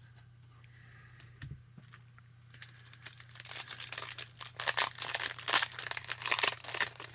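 A foil trading-card pack wrapper being torn open and crinkled by hand. It starts about two and a half seconds in and keeps up as a dense, loud crackling to the end.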